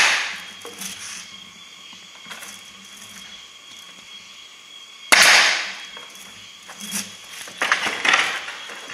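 Pneumatic nail gun driving a nail into the wooden boards of a beehive box: one sharp shot about five seconds in that trails off within half a second, after the tail of a previous shot at the very start. A few shorter knocks near the end as the box is handled.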